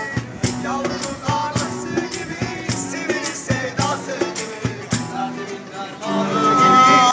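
Live acoustic music: two acoustic guitars strummed over a steady cajón beat, with a voice singing a Turkish song. Near the end the singer holds one long note, the loudest part.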